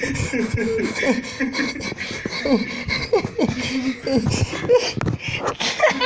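Children's wordless vocal noises, with shouts, grunts and snickers in short bursts and scattered knocks.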